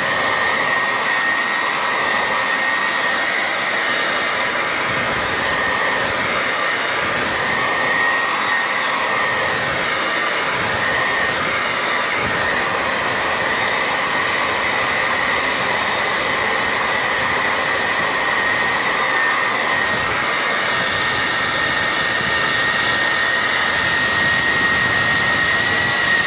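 Hair dryer running steadily on the iPad mini's screen to soften the adhesive under the digitizer glass: a constant rushing blow with a steady high whine from its motor.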